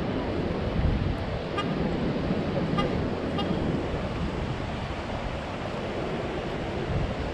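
Wind rumbling on the microphone over the steady wash of ocean surf. Three faint, short high beeps come between about one and a half and three and a half seconds in.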